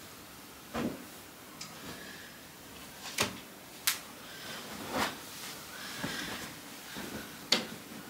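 Blankets, throws and a cushion being pulled out from behind a sofa and handled: soft fabric rustling with about five separate short knocks and thumps.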